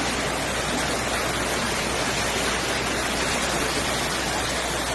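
Steady, unbroken rush of water in a flood brought on by torrential rain.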